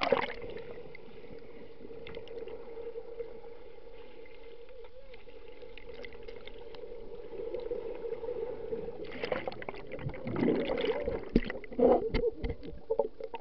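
A splash as swimmers dive into a pool, then muffled underwater sound with a steady hum. From about nine seconds in, loud bubbling and irregular knocks as swimmers churn the water around the camera.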